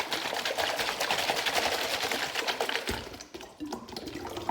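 Water sloshing inside two joined plastic soda bottles being shaken hard and fast, the rapid rattle stopping about three seconds in.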